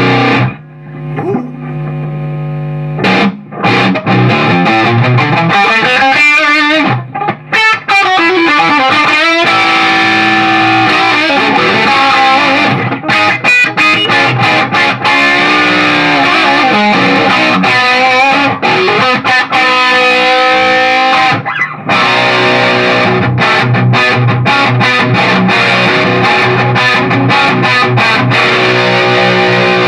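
Electric guitar played loud through a Beetronics Nectar distortion/fuzz pedal into a Marshall Plexi amp and 4x12 cabinet, picked up by a room microphone. A distorted chord rings out and dies away about a second in, then riffs with bent and sliding notes, turning to fast, choppy riffing in the last third.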